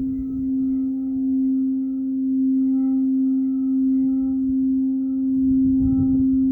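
Singing bowl held in a steady ringing tone with fainter higher overtones, its loudness swelling and easing about once a second without dying away. Wind rumbles on the microphone near the end.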